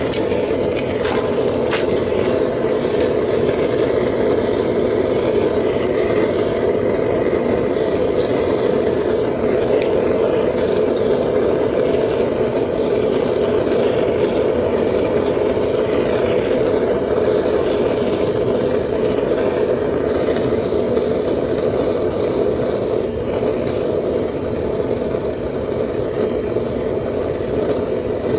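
Propane burner firing into a homemade foundry furnace that is melting aluminum: a steady, unbroken rushing noise of the flame. A few sharp clicks in the first two seconds.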